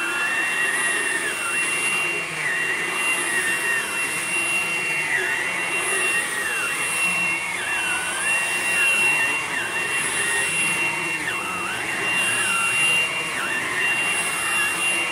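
Hoover Blade+ cordless stick vacuum running steadily, its motor giving a high, steady whine over the rush of suction.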